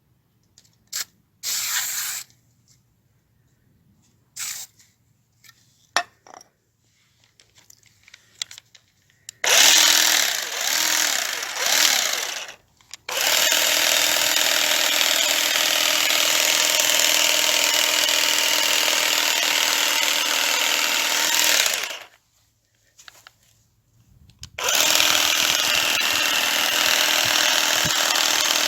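Makita DUM604 cordless grass shear's motor and reciprocating shear blades running. A few clicks and knocks first, then three short bursts, a long steady run of about nine seconds, a stop, and a restart about three quarters of the way in.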